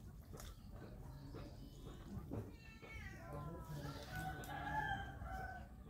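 Soft clicks and mouth sounds of eating rice by hand from a steel bowl. From about halfway, a background animal call takes over and is the loudest sound: several drawn-out pitched notes that glide up and down.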